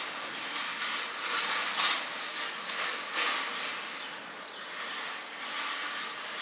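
A pump spray bottle spritzed at the face in a few hissing bursts in the first half, over a steady hiss.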